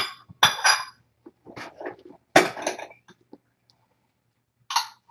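A few sharp clinks and clatters of hard objects knocking together, some with a brief ring. The loudest comes about two and a half seconds in, and another near the end.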